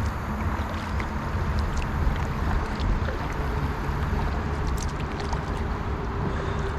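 Water splashing and lapping around a kayak as it is paddled, over a steady low rumble.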